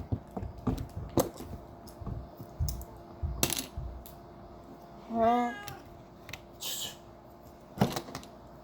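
Plastic Lego bricks clicking and clattering as pieces are handled and sorted, with a cat meowing once about five seconds in.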